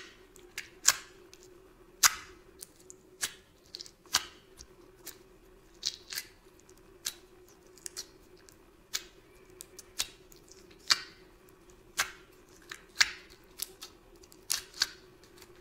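Jelly-textured slime being squeezed and poked by hand, giving sharp wet clicks and pops about once a second.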